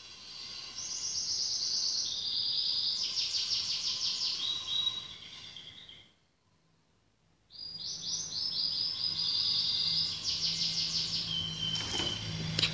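A bird singing: runs of fast trilled notes at changing high pitches, breaking off for about a second and a half in the middle. A short knock near the end.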